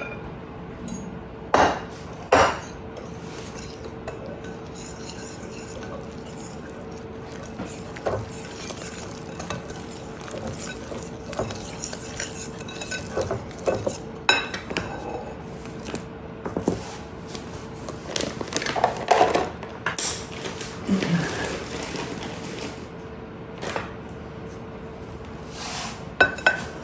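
A utensil clinking, knocking and scraping against a mixing bowl as flour mixture is stirred into wet batter, in scattered knocks with stretches of stirring between, over a faint steady hum.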